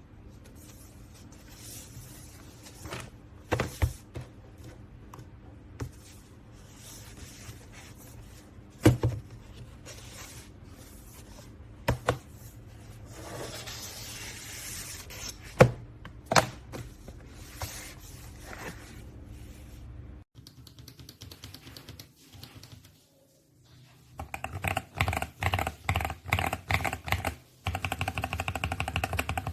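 Rustling and scraping with a few scattered sharp clicks as the switches and packaging are handled. After a short lull about three-quarters of the way in, fast continuous typing on a mechanical keyboard fitted with Akko CS Lavender Purple switches.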